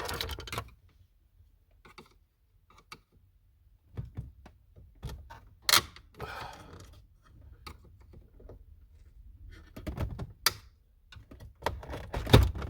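Brittle plastic dash trim on a Fox-body Mustang being pried and worked loose, its tabs giving irregular clicks, knocks and scraping, with a louder thunk near the end.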